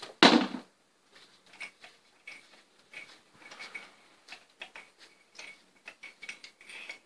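Ratchet wrench with a spark-plug socket clicking in short irregular runs while an old spark plug is worked loose. There is one sharp knock near the start, a light blow on the tool, because the plug sits a little tight.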